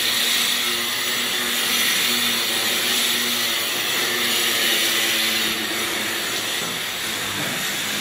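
A steady hissing, rushing noise of a machine running, with a faint low hum underneath.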